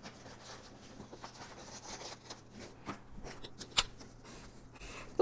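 Soft handling of green construction paper with a few sharp snips, cutting out a paper window, then a marker drawing lines across the paper square near the end.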